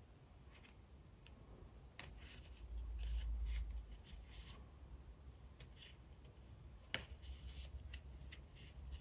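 Faint rustling of yarn and small clicks of a metal crochet hook as hands work single crochet stitches through an amigurumi piece. There is a low bump for about a second around three seconds in and a sharper click about seven seconds in.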